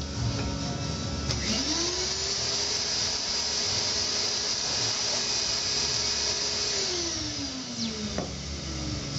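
Vacuum blower of a screen-printing vacuum table spinning up about a second in, running steadily with a high hiss of drawn air, then winding down over the last two seconds or so. There is a sharp click near the end.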